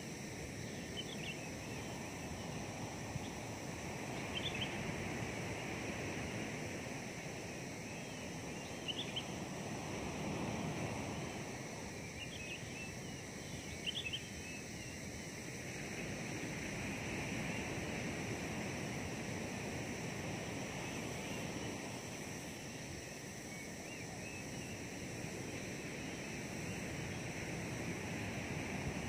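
Outdoor ambience: a steady rushing noise that swells and fades every several seconds, with about four brief high chirps in the first half.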